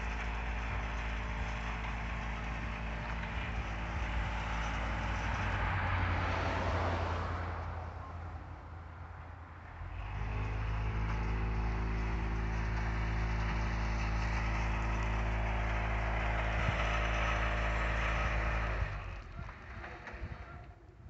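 Hi-rail dump truck's engine running steadily as it works along the track with its bed raised, dumping ballast. The engine sound dips for a couple of seconds about eight seconds in, comes back, then falls away near the end.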